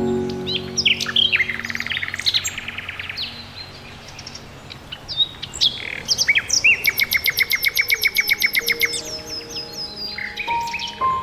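Songbirds singing: short chirps and fast trills of rapidly repeated notes, with the longest, loudest trill in the second half.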